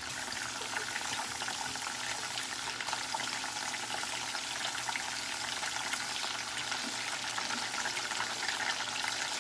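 Rotisserie-chicken skin frying in hot oil in a saucepan: a steady, crackling sizzle.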